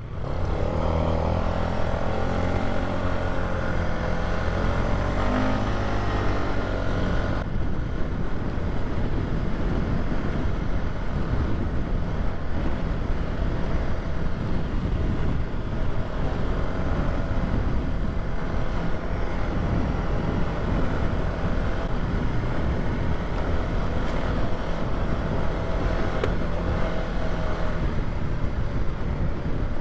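Polaris Sportsman 570 ATV's single-cylinder engine running steadily as it rides along a dirt trail. About seven seconds in, more rushing noise comes in over the engine, likely tyres on rougher ground and wind on the microphone.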